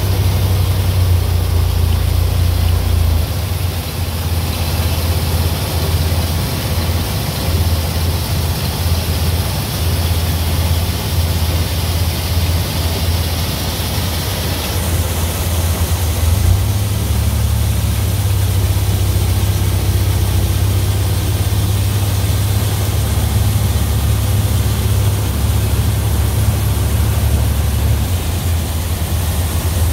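Tractor engine running steadily with a New Idea two-row corn picker and sheller working: a loud, even low drone over a hiss of machinery noise.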